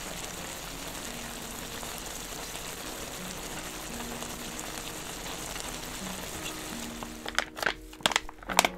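A pot of spicy chicken-feet soup simmering and sizzling on a portable burner: a steady hiss, under soft background music. Near the end come several sharp clicks and knocks.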